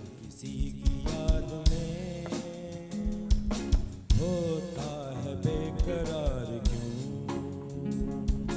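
A man singing a slow melody into a handheld microphone, with gliding, held notes, over a live band with a drum kit keeping a beat.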